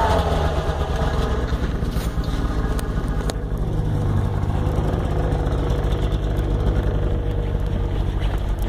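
Ski-Doo Tundra snowmobile engine running, its revs dropping at the start and then holding steady.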